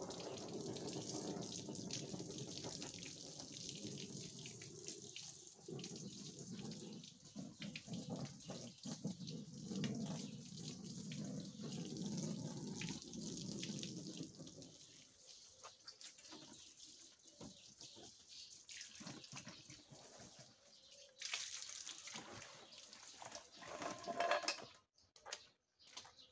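Water from a garden hose spraying and splashing onto a hanging carpet as it is washed. The spray is steady, then eases off about fifteen seconds in, with another burst a few seconds before the end.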